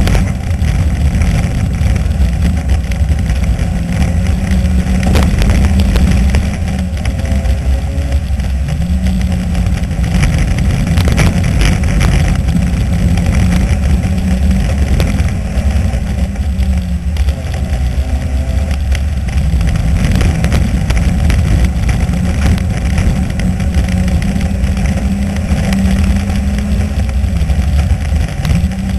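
Four-cylinder dirt-track race car engine heard from inside the car, running hard at racing speed. Its pitch climbs and falls again and again every few seconds as the driver accelerates and lifts off around the oval, over a heavy rumble and road noise.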